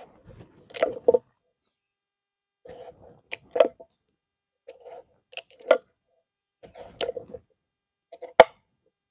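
Knife cutting raw pumpkin on a wooden cutting board: a short crunch as the blade goes through the flesh, ending in a sharp tap on the board, about five cuts a second or two apart.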